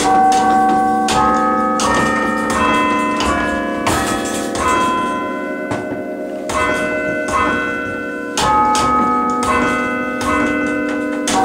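A chime of tower bells played by hand from a lever chime stand, ringing out a slow melody. Each note is a single bell strike whose ring hangs on under the next ones.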